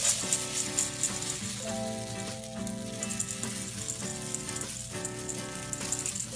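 Dry rolled oats pouring into a stainless steel bowl, a steady rustling hiss of flakes hitting metal and each other, with background music playing.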